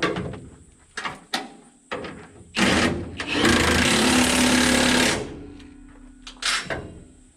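Impact wrench hammering a bolt tight: a short burst, then a run of about a second and a half. Sharp metal clinks of tools come before and after.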